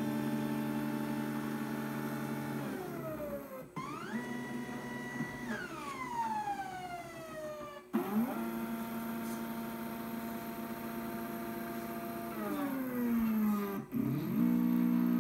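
Gear-drive stepper motors of a 3D-printed six-axis robot arm whining through a series of moves. Each move is a steady tone that rises in pitch as the motors speed up, holds, then falls as they slow down, with brief breaks between moves.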